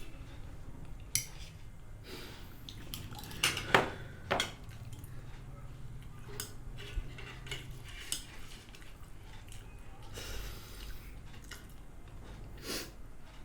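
Spoons and forks clinking against plates during a meal: scattered sharp clinks a second or more apart, the loudest a few seconds in, over a low steady hum.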